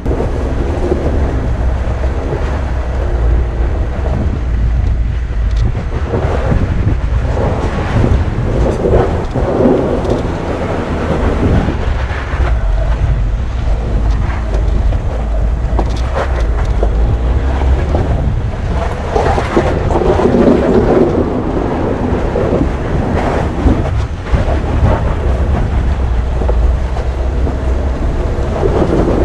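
VW California camper van driving over a rough off-road track: a loud, steady low rumble with clatter that swells now and then, and a few sharp knocks.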